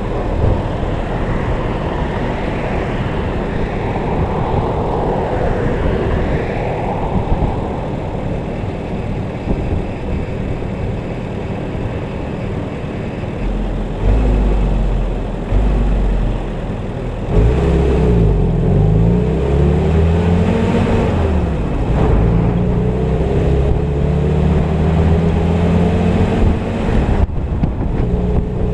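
Willys M38 jeep's four-cylinder flathead engine idling, then, a bit over halfway in, pulling away and revving up through the gears, the engine note rising and dropping back twice at the shifts.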